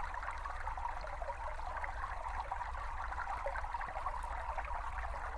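A small brook trickling and babbling steadily.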